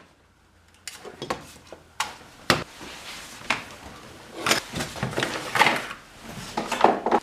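Irregular knocks, clicks and clatter of tools and workshop objects being handled and put away, several sharper knocks among softer rattling, after a brief hush at the start.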